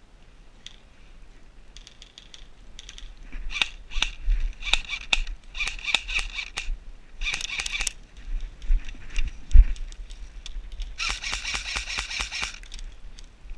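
Airsoft guns firing in rapid bursts, several runs of fast clicking shots with the longest burst near the end. A single sharp thump, the loudest sound, comes about two thirds of the way in.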